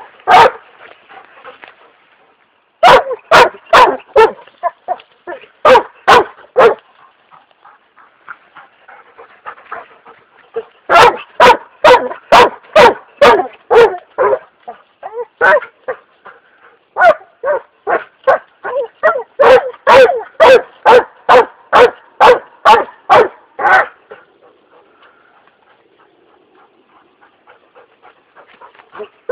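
Weimaraner barking in runs of quick, loud barks, about two or three a second, with short pauses between the runs. The barking stops about five seconds before the end.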